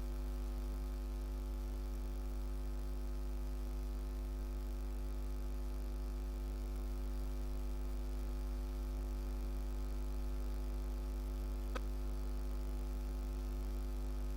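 Steady electrical mains hum with a stack of evenly spaced overtones, and one faint click about twelve seconds in.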